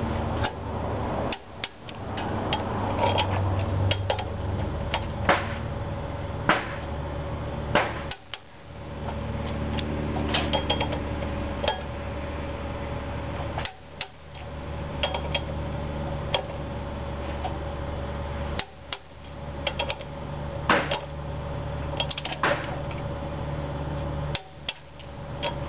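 Click-type torque wrench tightening the flywheel bolts on a Chevy 350 small-block V8, giving a sharp metallic click each time a bolt reaches 60 ft-lb. Several clicks come a few seconds apart, over a steady low hum.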